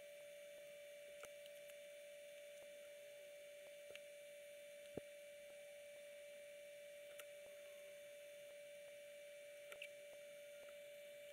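Near silence: a faint steady tone with a few faint clicks, the loudest about five seconds in.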